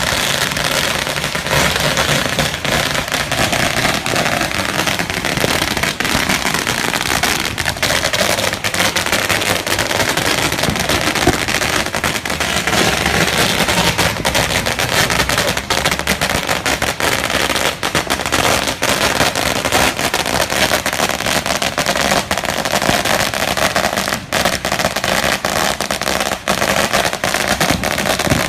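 A 16,000-count string of firecrackers burning down: a continuous, rapid crackle of small bangs at a steady level, with no let-up.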